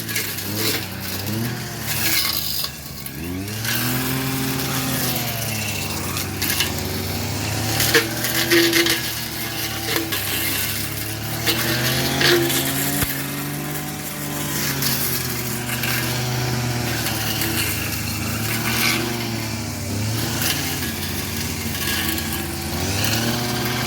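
Brush cutter engine running under load, its pitch rising and falling every few seconds as the throttle is worked through dense undergrowth, with scattered sharp clicks.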